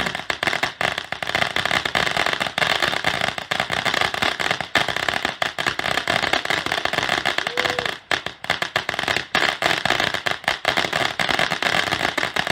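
Consumer fireworks going off in a dense, continuous barrage of rapid pops and crackles, with a brief let-up about eight seconds in.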